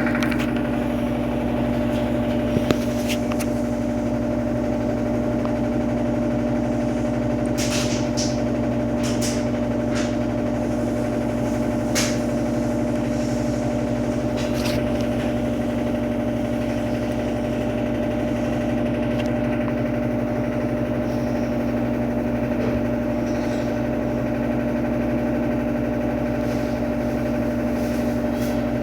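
Electrolux Turbo Economia 12 kg (LTE12) washing machine in its final spin at 720 RPM: a steady motor and drum hum with a constant whine, and a few faint ticks.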